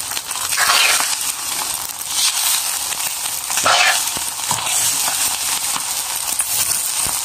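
Fried rice sizzling in a hot metal pan as a spatula stir-fries it, with louder scraping and tossing strokes every second or two over the steady sizzle.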